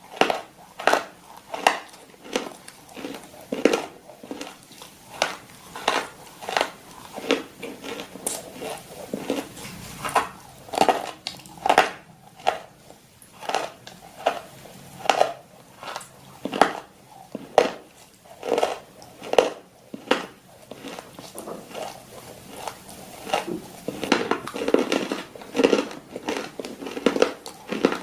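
A dog chewing something crunchy, with sharp crackling crunches about one to two a second.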